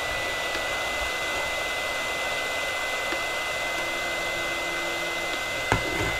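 Hot air gun blowing steadily: an even rushing hiss with a thin, steady whine. It is softening the flexible adhesive that holds the voice-coil lead on a speaker cone. A single sharp click comes near the end.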